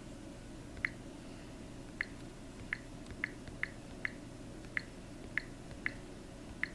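Key-press clicks from a Samsung Galaxy Tab 2 10.1's on-screen keyboard as a word is typed letter by letter: ten short, sharp ticks at an uneven typing pace, over a faint steady hum.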